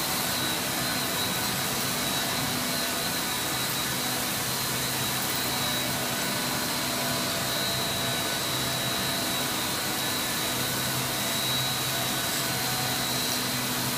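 JINGMEI JLCD 50-inch circular knitting machine running at speed: a steady whirring hiss with a thin high whine and a low hum, unchanging throughout.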